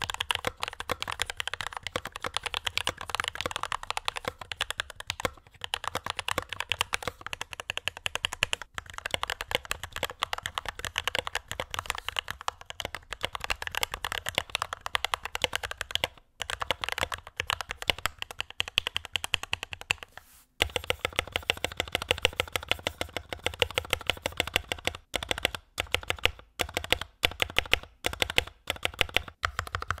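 Typing sound test on a capsunlocked CU65 65% hot-swap mechanical keyboard with Durock L7 linear switches on 62 g springs, Durock V2 stabilizers and PBT keycaps: a fast, continuous run of key clacks, with a brief pause about 20 seconds in. The case has its stock foam at first and custom foam from a few seconds in.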